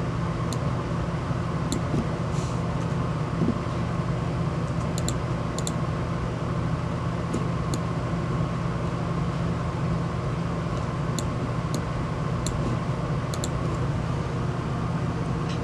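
CB radio receiver putting out steady static with a low hum, with scattered faint clicks.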